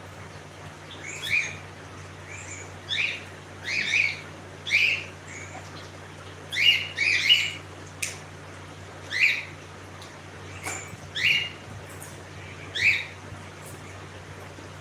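Pet cockatiel giving about ten short chirping calls at irregular intervals, with a steady low hum underneath.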